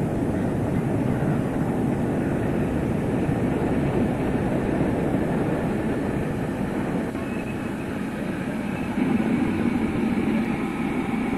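Coal-fired steam locomotive rolling slowly into a station with its train, a steady rumble of running gear and wheels on rail. A faint high tone joins about seven seconds in.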